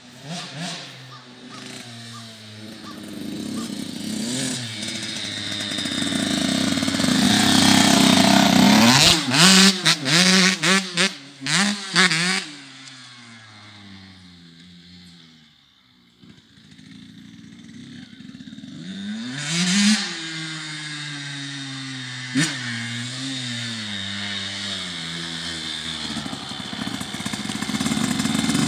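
Small youth dirt bike engine revving up and down as it is ridden over grass: loud with several quick revs close by a third of the way in, fading as the bike goes far off, then growing louder again with a rev as it comes back near.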